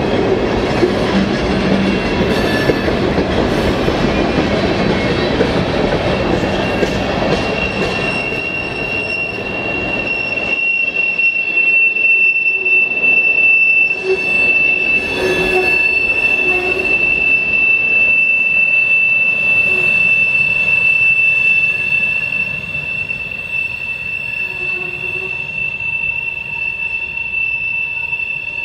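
Freight train tank cars rolling past with a heavy rumble of wheels on rail, then a loud, steady, high-pitched wheel squeal that takes over from about eight seconds in as the train pulls away. The squeal is flange noise: the wheel flanges grinding against the rail on a sharp curve.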